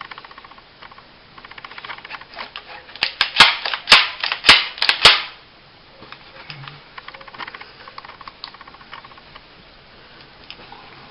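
Metal clicks and snaps of a mini 1911 9mm pistol's parts being worked by hand after reassembly. There are light rapid clicks at first, then a cluster of loud, sharp snaps between about three and five seconds in, then lighter clicking.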